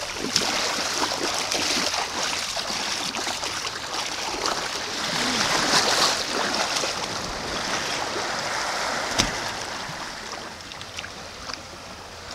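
Shallow sea water washing and lapping at the shore as someone wades in, a steady hiss of water, with one sharp click about nine seconds in.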